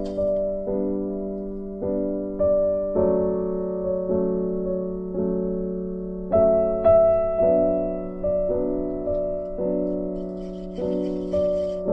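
Background piano music: single notes and chords struck one after another, each left to fade before the next.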